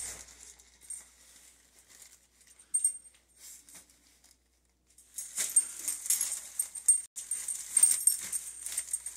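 A small dog shoving a plastic-wrapped pack of toilet paper across a tile floor with its head: a clatter of small scrapes, clicks and rustles. It is sparse at first and gets busy and louder about five seconds in.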